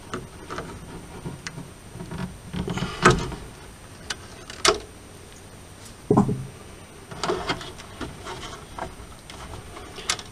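Handling noise from hands working on the plastic parts and wiring inside a 3D printer's top: soft rubbing with a few sharp clicks and knocks scattered through, as a wire connector is worked loose.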